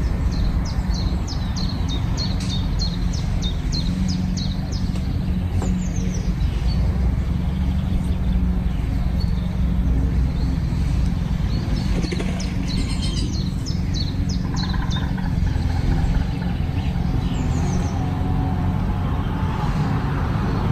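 A small songbird calling in quick runs of short, high, falling chirps, several times over, above a steady low rumble.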